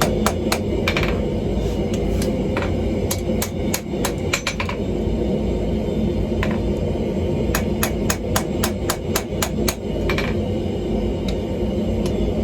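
Rapid hammer blows on a hot steel workpiece as a steel ball bearing is forged into a blade, about five strikes a second in several runs with short pauses between them, over a steady low rumble.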